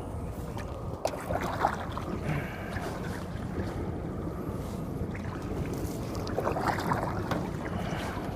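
Muffled rubbing and knocking picked up by a phone inside a chest pocket aboard a canoe, over a steady low rumble, with clusters of sharp knocks about a second in and again near seven seconds.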